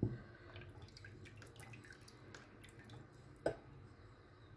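A thin stream of passion fruit juice and sugar syrup pouring into a plastic blender jar of milky liquid. It trickles and drips faintly, then stops, with one sharper knock about three and a half seconds in.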